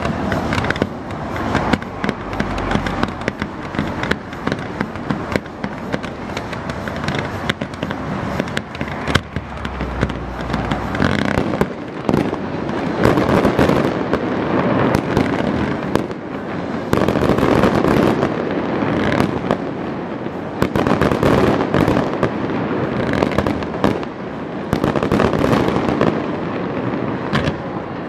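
Fireworks display: rapid bangs and crackling from bursting shells, growing denser and louder from about twelve seconds in and coming in several surges.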